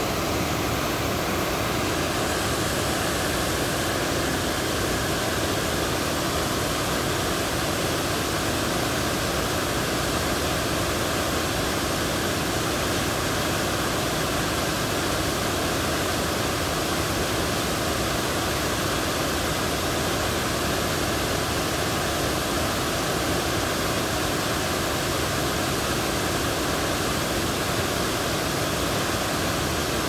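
Small creek waterfall, water pouring steadily over the drop in an even, unbroken rush of noise.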